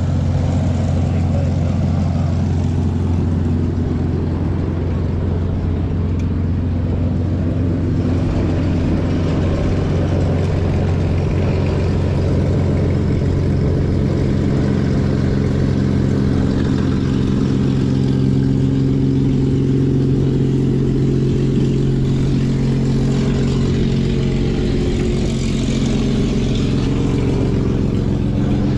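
An engine running steadily throughout, a loud continuous hum whose pitch drifts slightly.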